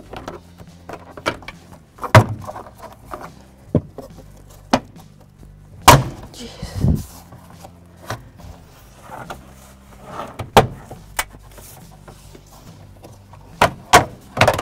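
Plastic interior trim panel of a 2003–2007 Honda Accord being pried loose with a trim tool: irregular sharp clicks and knocks as the retaining tabs pop free and the panel is lifted out, with several louder snaps scattered through.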